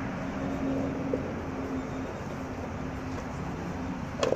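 Wooden stick stirring and pressing a thick flour porridge in a metal pot over a wood fire, with one sharp knock of the stick against the pot near the end, over a steady low background rumble.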